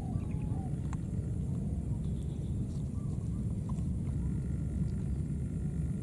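Outdoor ambience with a steady low rumble, and over it a few faint short animal calls: soft rising-and-falling cries and high chirps. A single sharp click comes about a second in.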